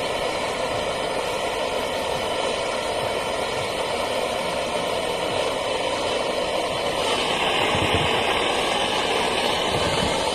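Vehicle engine idling steadily, with a higher hiss joining in about seven seconds in.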